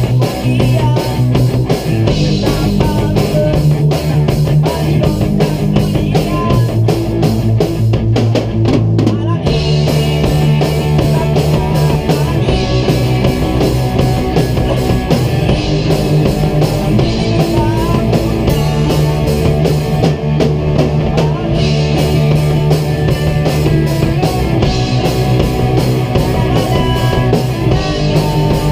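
A rock band playing live together: a drum kit and electric guitars, loud and continuous, in an unrehearsed jam.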